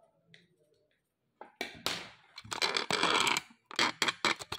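Handling noise: a quick run of loud clatters and knocks as the recording phone or camera is picked up and repositioned, starting about a second and a half in.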